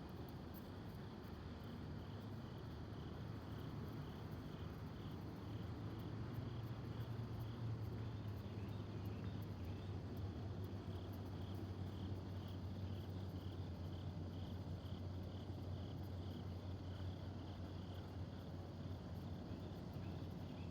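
Outdoor ambience of an insect chirping in a steady, regular pulse about twice a second, over a constant low rumble of distant traffic.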